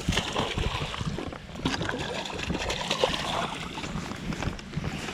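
Water splashing and dribbling as a largemouth bass is netted beside the boat and lifted from the river, with a low rumble of wind on the microphone.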